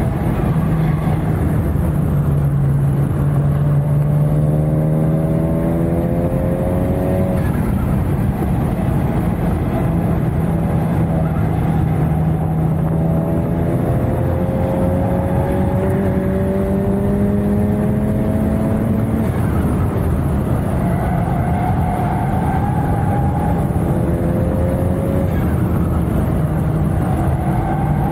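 Honda Civic Type R's turbocharged 2.0-litre four-cylinder heard from inside the cabin on track. The engine note rises in pitch several times and drops back between pulls, over steady road and wind noise.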